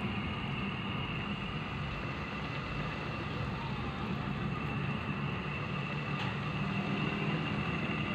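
Squid simmering in dark adobo sauce in a pan, a steady bubbling noise with a faint steady high-pitched tone over it.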